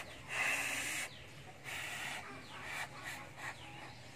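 Chickens clucking in a run of short, noisy calls, the loudest about half a second in.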